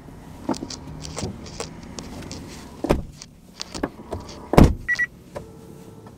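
Rustling, clicks and knocks of someone settling into a car's driver's seat, with a heavy thump about four and a half seconds in, the loudest sound, followed at once by a short electronic beep.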